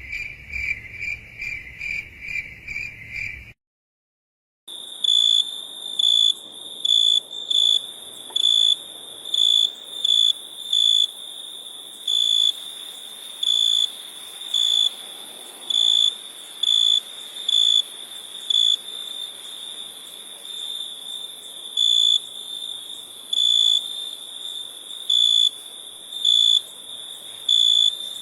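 Crickets chirping. A first recording has chirps repeating about three times a second and stops after a few seconds. After a short silence a second, higher-pitched cricket trills steadily, with louder chirps standing out roughly once a second.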